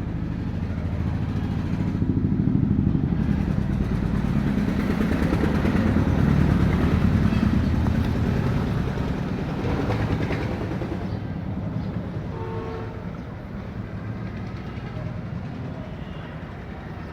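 A motor vehicle going by: a low engine and road rumble that grows louder to a peak about halfway through, then slowly fades.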